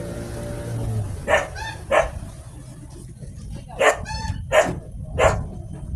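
A dog barking, about five sharp barks: two early on, then after a pause three more in quick succession. A low steady hum fades out about a second in.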